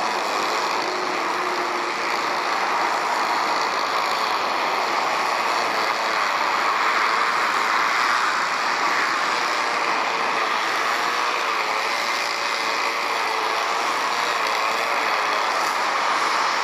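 Rolls-Royce Trent 900 jet engines of an Airbus A380 running as the airliner rolls slowly past, a steady roar with a faint wavering whine in it. Motorway traffic hum is mixed in.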